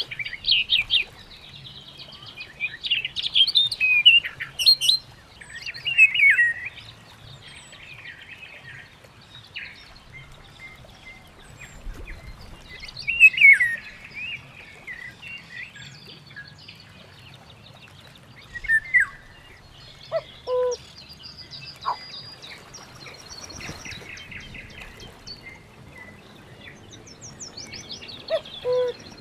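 Several birds chirping and singing, with quick high trills and whistled phrases that come and go. A few lower calls are heard about two-thirds of the way in and again near the end.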